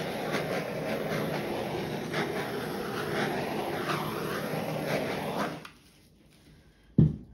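Handheld torch flame hissing steadily as it is passed over wet poured acrylic paint to pop air bubbles, shutting off about five and a half seconds in. A single sharp thump follows near the end.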